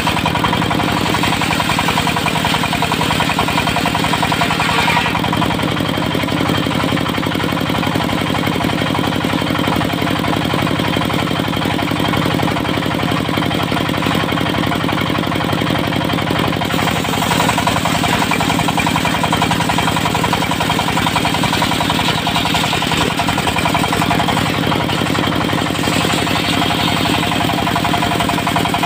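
Diesel engine of a Dongfeng-powered mobile circular sawmill running steadily with a fast even chugging, and a higher hiss over it that swells and fades a few times.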